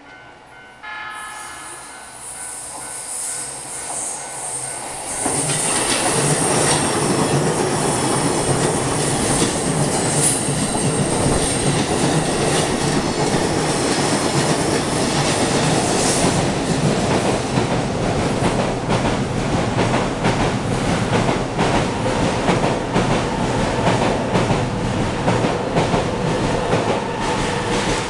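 Level-crossing warning bells ringing, then a JR Joban Line electric commuter train approaching and passing close by for about twenty seconds. A high squeal from the wheels comes early in the passage, and the wheels click over the rail joints later on.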